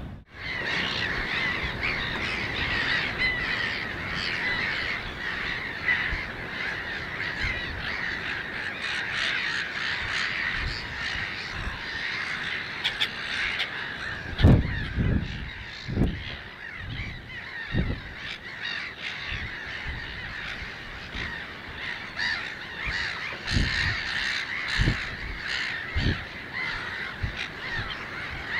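A dense, continuous chorus of many wetland birds calling at once, with a few low thumps in the second half.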